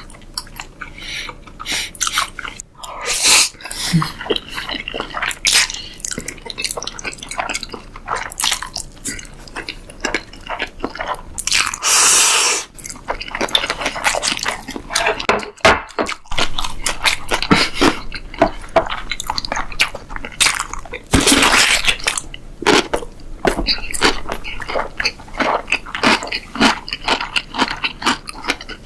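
A person eating: chewing and biting, with many short crunches and wet mouth clicks, and a few longer noisy rushes about 3, 12 and 21 seconds in.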